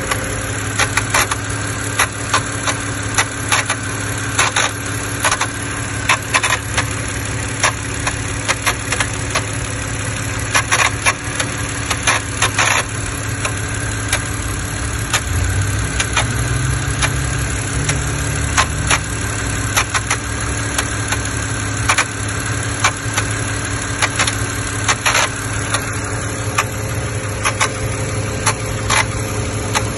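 BMW petrol engine idling, a steady hum with irregular sharp ticks and clicks over it, the unexplained engine noise being searched for. About halfway through, the low hum rises in pitch for a few seconds, then settles.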